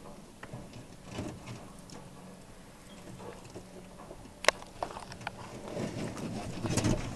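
Savanna monitor lizard feeding on a small rat: faint scattered crunching and rustling in straw bedding, with one sharp click about four and a half seconds in.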